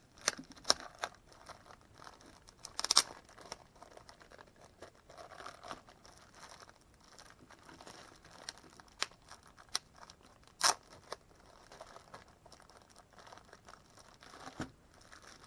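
Cardboard mailing package being opened by hand: intermittent crinkling and tearing with scattered clicks, and a few sharp louder snaps about three seconds in and again near eleven seconds.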